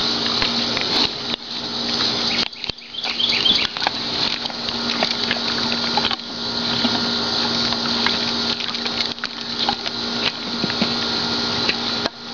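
Tennessee Walking Horse crunching ice cubes in its mouth: irregular crackling and snapping over a steady background hiss.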